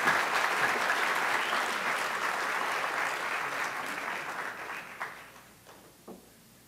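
Audience applauding, the clapping dying away about five seconds in, with a few single late claps near the end.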